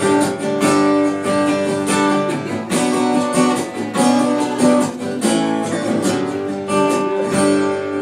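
Acoustic guitar strummed in an instrumental break between sung lines of a country-style ballad, chords ringing with a regular strumming rhythm.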